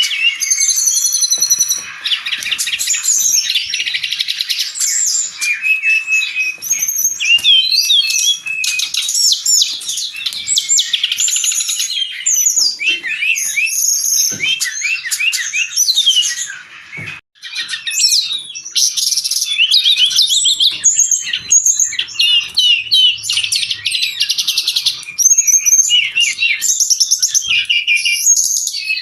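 Brown-chested jungle flycatcher singing without letup: a rapid, varied stream of whistled notes and chattering trills, with a short break about seventeen seconds in.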